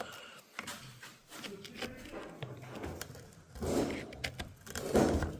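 Irregular scraping and small clicks of a hand tool working carbon deposits out of a brush cutter's clogged exhaust port, the clog that makes the engine start and then stall. The scraping is louder in two stretches in the second half.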